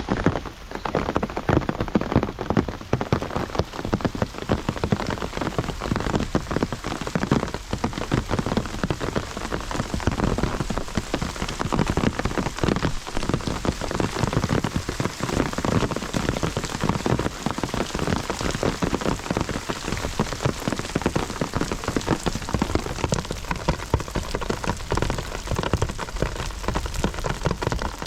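Heavy rain falling steadily, a dense noise of countless drops striking surfaces.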